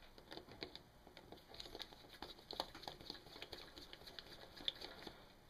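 Faint, irregular light clicks and taps of small metal engine parts and hand tools being handled.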